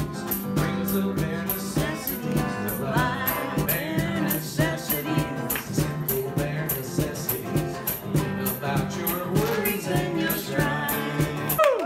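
Live solo performance: a man singing and strumming a guitar, with a steady, even percussive tick keeping the beat.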